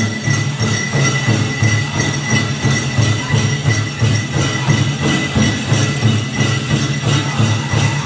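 Powwow drum group playing a steady, even drumbeat with song, and the bells on the chicken dancers' legs jingling along with the beat.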